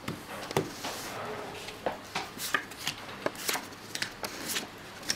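Playing cards dealt one by one from a deck onto a felt table: a string of short, irregular snaps and light slides as each card is drawn off and laid down.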